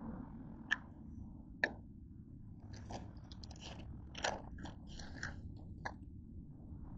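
A paper takeout bag being handled and lifted, rustling and crackling, together with close crunchy biting and chewing. Two sharp clicks come in the first two seconds, then a run of short crackles in the middle.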